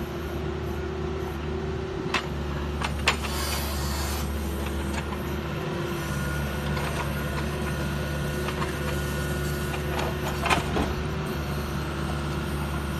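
Excavator diesel engine and hydraulics running steadily with a low hum, with a few sharp metal clanks from the grapple about two and three seconds in and again near ten and a half seconds.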